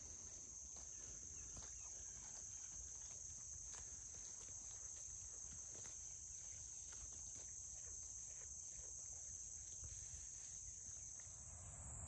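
Faint, steady high-pitched chorus of crickets, with faint scattered rustles and crunches of sheep grazing in tall grass.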